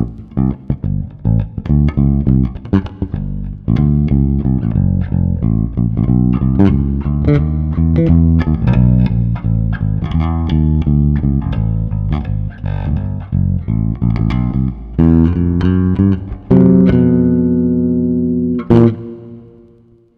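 Passive electric bass played through a Fuhrmann bass preamp pedal set for extra volume and low-end weight, with a quick line of plucked notes. Near the end it settles into a held note, then one last note that rings out and fades.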